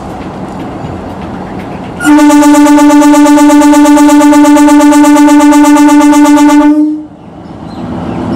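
Horn of a DEMU (diesel-electric multiple-unit) train sounding one long steady blast of about five seconds, starting about two seconds in. The rumble of the train running is heard before and after it.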